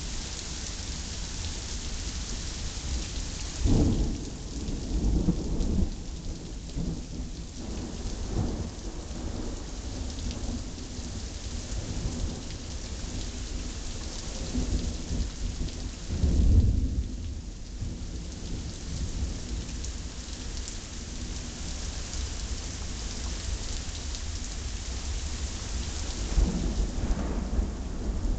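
Thunderstorm: steady rain hissing throughout, with thunder rumbling three times, a few seconds in, midway, and again near the end.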